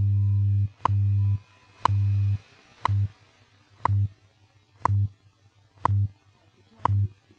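WWV shortwave time-signal broadcast received in AM on 10 MHz. A short tick marks each second, eight in all, and between ticks a low hum pulse of varying length, the station's 100 Hz time code, sounds over faint shortwave hiss.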